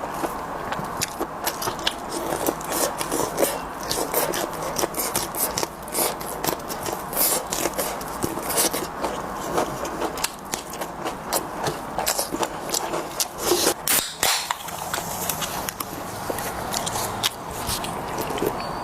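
Utensils clicking and scraping against dishes, with eating sounds: a run of short sharp clicks over a steady low rustle.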